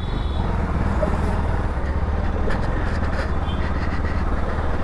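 Bajaj Pulsar NS200 motorcycle on the move, its engine running steadily under a constant rush of wind and road noise.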